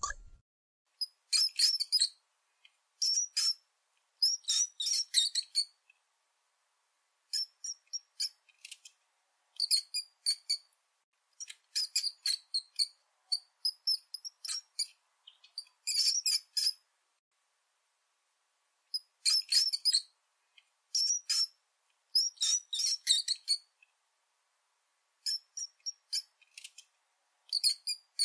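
Mouse squeaking: short bouts of rapid, very high-pitched chirps, each bout about a second or less, separated by gaps of silence.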